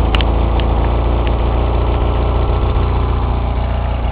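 Honda portable generator's engine running at a steady speed, with a few light clicks in the first second or so.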